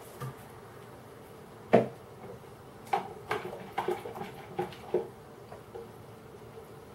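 Kitchen utensils clattering: one sharp metal knock about two seconds in, then a string of lighter, irregular taps and clinks, as a metal mixing bowl is handled at the saucepan and a spoon works in a jug.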